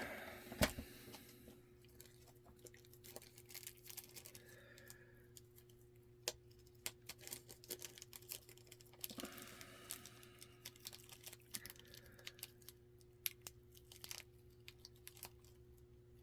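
Faint, scattered small clicks and rustling of hands working on a disassembled deadbolt lock cylinder, handling its tiny pins and springs, over a faint steady hum.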